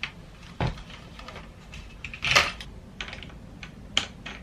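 Scattered clicks and taps, with a louder brief clatter a little over two seconds in and a sharp click near the end.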